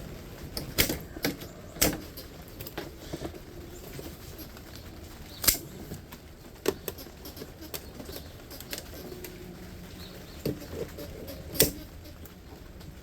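Irregular clicks and knocks with light rustling as dehumidifier parts and hand tools are handled during disassembly; the sharpest knocks fall about two seconds apart early on, then about five and a half seconds in and again near the end.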